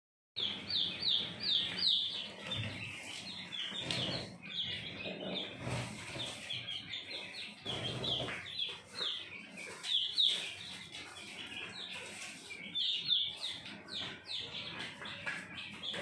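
A flock of young quail peeping: a constant stream of short, high, downward-sliding chirps, several a second, overlapping from many birds. A few soft low thumps come through now and then.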